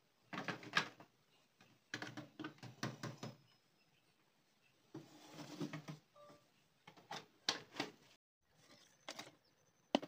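Clear plastic bottle being worked against a concrete-block wall: irregular knocks, taps and scrapes in several short clusters.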